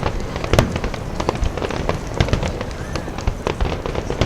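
Fireworks bursting in quick succession, a dense run of sharp bangs and crackles over a low rumble.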